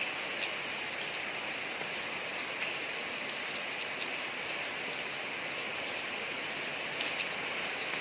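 Steady rain falling on a street, a continuous hiss with scattered individual drops ticking on hard surfaces.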